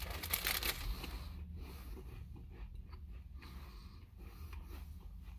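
Crunchy chewing of a crisp, crumbly walnut cookie close to the microphone: crunchiest in the first second, then fainter chewing.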